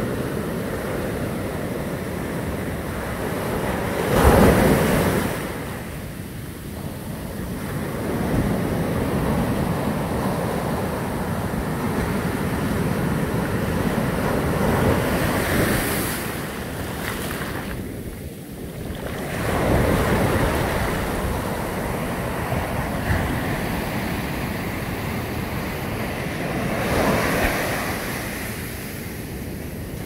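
Heavy surf breaking and washing over the shore, a steady rush that swells and falls in surges, loudest about four seconds in.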